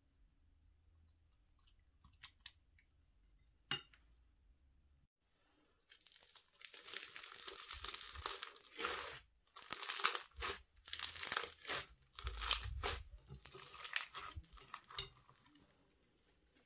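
Clear slime packed with beads being squeezed and kneaded by hand, making repeated bursts of wet crackling and crunching, each about a second long. Before that, a few light clicks of a plastic spoon against the glass dish.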